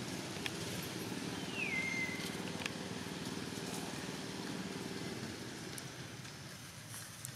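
A vehicle engine idling steadily, fading out about six seconds in. About one and a half seconds in, a single high call drops in pitch and then holds for a moment. A few light clicks are also heard.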